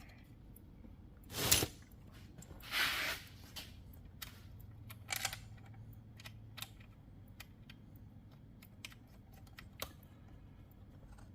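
Light clicks and clunks of chainsaw parts being handled and fitted together on a Stihl MS460, with one sharper knock about one and a half seconds in and a short scrape about a second later.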